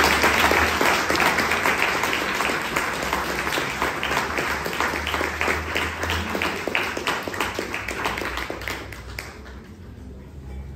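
Audience applauding, with the speaker clapping along. It is loudest at first, then thins to scattered individual claps and dies away about nine seconds in.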